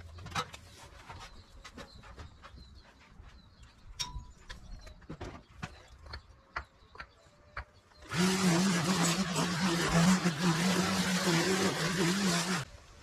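Scattered light clicks and rustles, then about eight seconds in a string trimmer runs at full speed cutting grass for about four and a half seconds, a steady high-revving whine, before it stops near the end.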